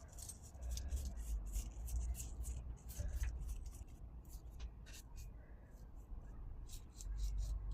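Rapid light clicks and scratches of small pieces of clear glass being handled, several a second.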